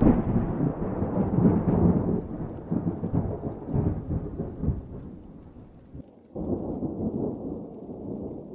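Thunder sound effect: a loud clap of thunder rumbles and slowly fades, then a second roll of thunder breaks in suddenly near the end and fades again.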